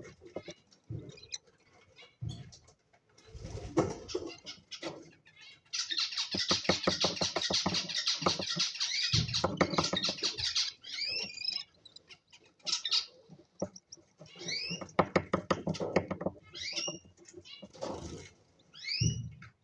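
Cockatiels chattering and calling: a long run of rapid, buzzy chatter through the middle, then short rising chirps repeated several times toward the end.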